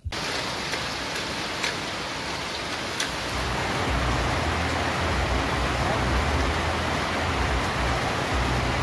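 Steady rain falling, with water running off a sheet-metal awning onto a metal tabletop and a few single drop ticks. A low rumble joins in about four seconds in.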